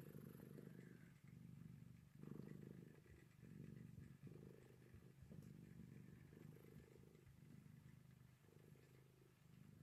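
Kitten purring softly while being stroked, a low rumble that swells and breaks in a steady rhythm of pulses about a second long.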